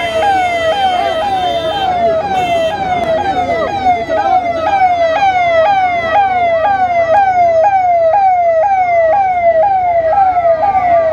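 Electronic vehicle siren on a convoy car, sounding a fast repeating falling wail of about two and a half sweeps a second.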